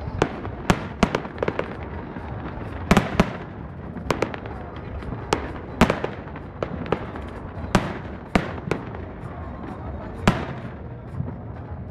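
Aerial firework shells bursting overhead: more than a dozen sharp bangs at irregular intervals, some in quick pairs, each with a short echo, over a steady low rumble.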